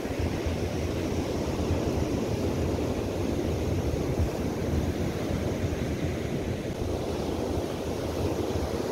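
Steady wash of ocean surf breaking on a sandy beach, with wind rumbling on the microphone.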